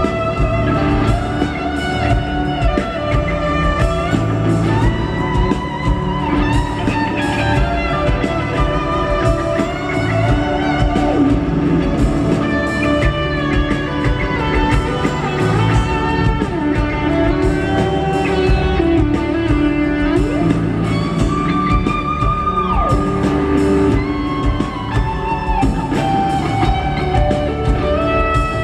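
Live rock music: an electric guitar plays a lead solo of held, bending notes over drums and the rest of the band.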